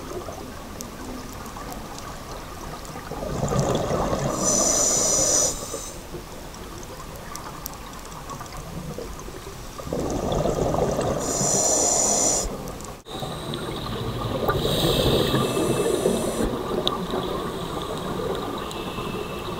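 Scuba diver breathing through a regulator, heard underwater: three breaths about five seconds apart, each a loud burst of exhaust bubbles with a hiss.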